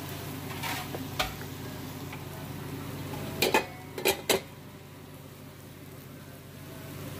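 Kitchen utensils clinking and knocking against pots and pans over a steady low hum. There are a couple of light clicks early, then four sharp clinks in quick succession a little after halfway.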